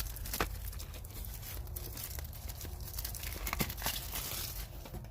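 Packaging around a set of sockets being handled and opened, crinkling, with a few sharp clicks and taps scattered through it.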